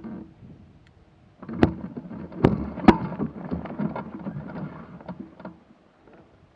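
Crackling rustle and a few sharp knocks, the loudest three within about a second and a half, from the hang glider's frame and sail being handled, carried through the frame to the camera mounted on it.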